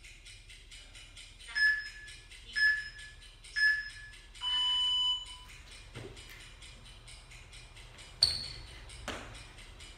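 Workout interval timer counting down: three short beeps about a second apart, then one longer, lower beep that signals the start of the exercise interval. A sharp knock follows near the end, with faint background music under it all.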